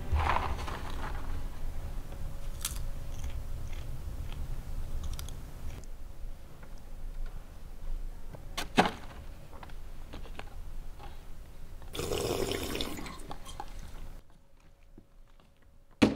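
Rustling and crunching of rubbish, such as a cardboard box, being picked up with a litter grabber between cinema seats. There is a sharp click about nine seconds in and a louder rustle around twelve seconds, over a faint steady hum. It goes quiet before a sudden knock at the very end.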